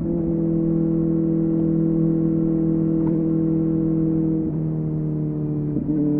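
Kawasaki ZX-4RR's 399 cc inline-four engine running through a Yoshimura AT2 slip-on exhaust, holding a steady high engine speed. The note breaks briefly twice near the end, each time settling at a slightly different pitch, as in quick gear shifts.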